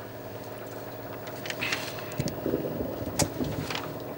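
Steady hum, with a single sharp click about three seconds in.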